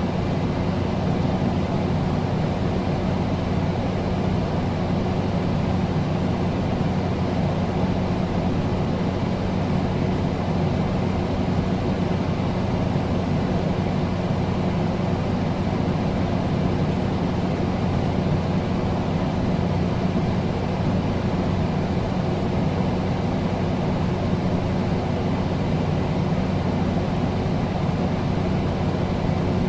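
Air conditioner running steadily: an even rush of air with a low, constant hum underneath.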